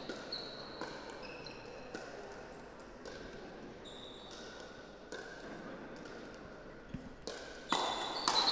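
Pickleball paddles hitting the plastic ball in a rally, about one sharp pock a second, with short high squeaks from shoes on the court floor. The hits come quicker and louder near the end.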